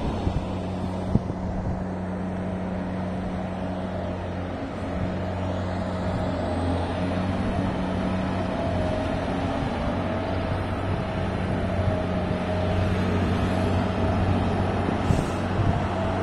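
Diesel engine of a ship-mounted grab crane running steadily with a low hum, growing a little louder after about six seconds as a thin high whine comes in.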